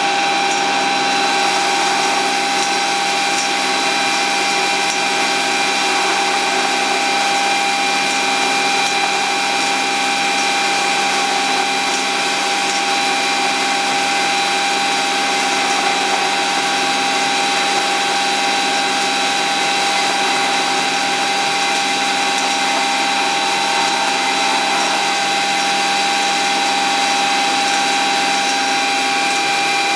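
Marvel 81A9 vertical band saw running under power, a steady machine hum and whine with several fixed tones that hold at an even level.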